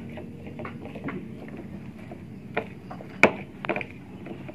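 Pestle knocking and grinding chillies in a cobek mortar for sambal: scattered short taps, with one sharp, loud knock a little past three seconds in.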